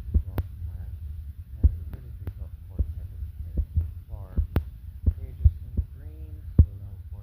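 A low steady hum with about ten sharp clicks at uneven intervals, and a few faint pitched sounds in between.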